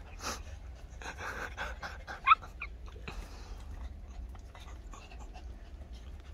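Dogs panting in short breathy bursts, with one short high-pitched whimper about two seconds in.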